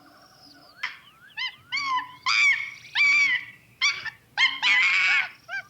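A series of about eight short, high-pitched yelping animal calls, each rising and then falling in pitch, some quick and close together, one longer and noisier near the end.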